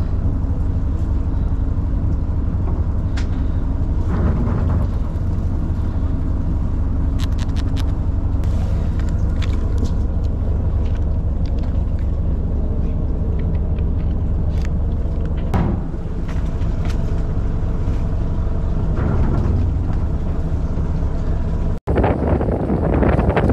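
Fishing boat's engine running steadily with a low hum, with small clicks of tackle and bait being handled. Near the end it cuts to wind buffeting the microphone.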